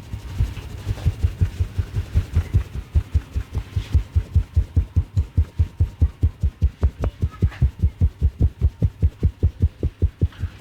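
Rapid rhythmic massage strokes, hands pounding on a person's head or back with dull low thumps at about five a second, soft and uneven at first, then louder and steady.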